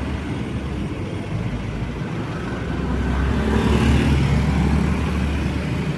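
Road traffic: a steady rumble of vehicle engines and tyres, with one vehicle growing louder as it passes about halfway through.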